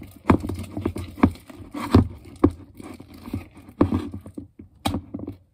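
Spoon stirring sticky borax slime in a plastic mixing bowl, knocking and scraping against the bowl's sides in irregular strokes, about two a second. It stops abruptly near the end.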